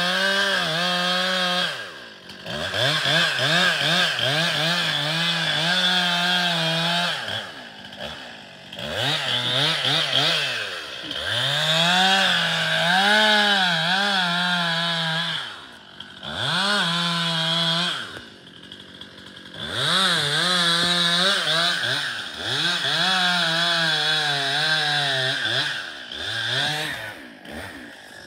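Two-stroke chainsaw cutting into a stringybark trunk, revving up under load and dropping back to idle several times between cuts.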